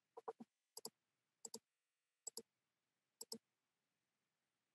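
A computer mouse button clicking five times over about three seconds, each click a quick double tick, over near silence.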